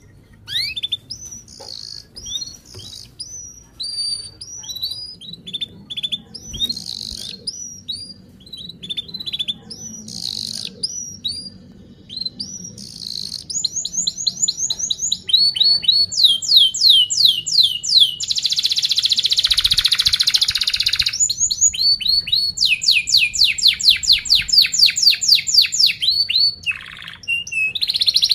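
Domestic canary singing: first a run of separate sharp chirps, then from about halfway fast, tight rolling trills broken by a harsh buzzing passage.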